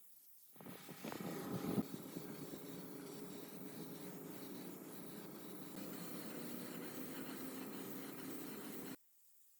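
Steady abrasive rubbing noise, like sanding or filing on a surface. It starts about half a second in, is loudest around a second in, then holds steady and cuts off suddenly near the end.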